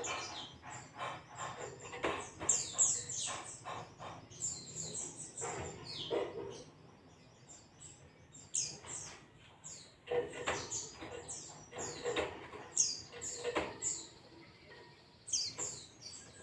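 Zosterops white-eye (pleci) singing in rapid runs of high, quick downward-slurred notes, in several bursts separated by short pauses.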